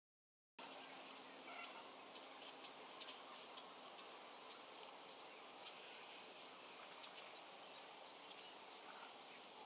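Common kingfisher giving its shrill, high-pitched whistled calls: short single notes, each dropping slightly, about seven of them spaced a second or two apart, with two close together.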